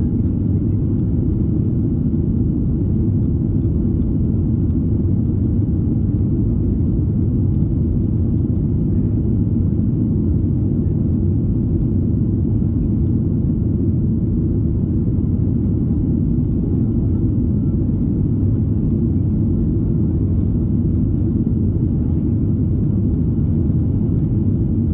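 Steady low rumble inside the cabin of a Boeing 737-800, heard from a window seat, with no change in pitch or level.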